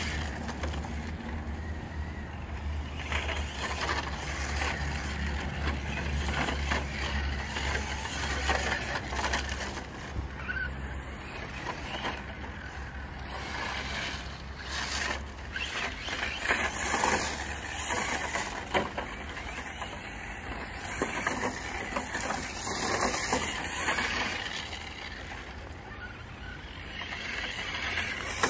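Electric 1/8-scale RC short-course truck, a Hobao Hyper SC8 on a 4S LiPo, driving on loose gravel: drivetrain whirring and tyres crunching, the sound rising and falling as it speeds up and slows. A steady low hum runs under the first ten seconds.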